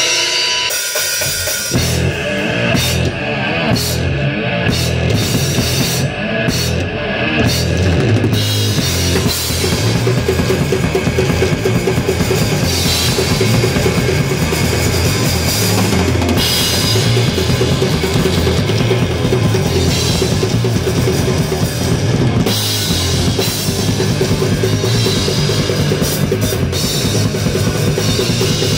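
Death-thrash metal band playing live in a small rehearsal room: a drum kit with bass drum and cymbals out front, with electric guitars. Clipped stop-start hits for the first several seconds, then fast, continuous full-band playing from about eight seconds in.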